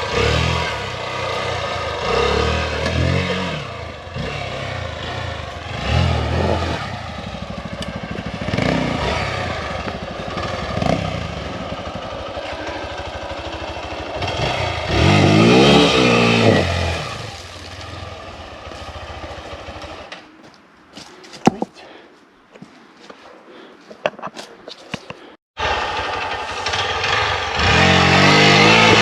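Hero XPulse 200 single-cylinder engine revving in repeated bursts, its pitch rising and falling as the bike struggles for grip on a very slippery trail section. About two-thirds of the way in, the engine drops away to a quieter stretch with scattered sharp knocks. Near the end, after a sudden break, it is running loud again.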